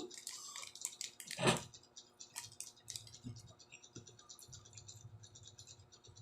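Close-up eating sounds: chewing on crisp fried dried fish and rice, a run of small wet clicks and crunches, with one louder mouth sound about one and a half seconds in.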